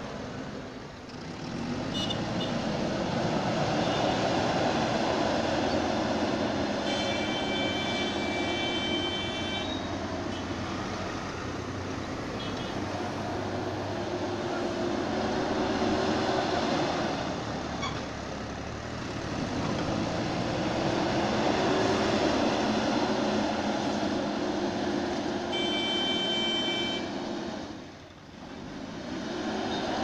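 JCB backhoe loader's diesel engine running under load, swelling and easing in long waves as the machine drives and pushes soil with its front bucket. A thin high-pitched tone comes in briefly twice.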